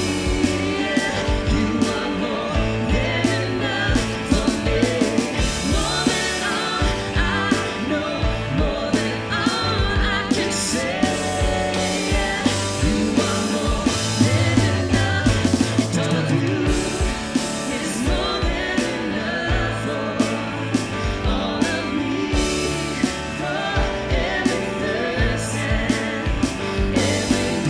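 A live worship band playing a contemporary Christian rock song: electric guitar, keyboard and drum kit with a steady beat, with singing over it.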